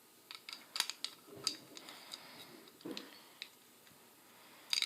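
Light clicks and taps of small pistol parts being handled and fitted together while reassembling the spring and barrel of a KJW M1911 gas blowback airsoft pistol. There is a quick run of clicks at the start, a soft knock about three seconds in, and another cluster of clicks near the end.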